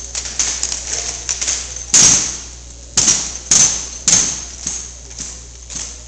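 Sharp slaps and knocks of drill rifles handled in unison by an armed drill team, a run of lighter knocks with four loud, ringing strikes about two, three, three and a half and four seconds in.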